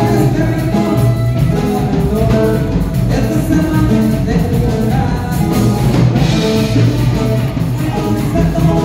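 Loud dance music with singing, played through the hall's large PA speakers.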